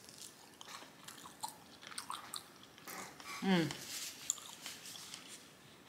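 A person chewing food close to the microphone, with small wet mouth clicks and lip smacks. About halfway through comes one short voiced sound that falls in pitch.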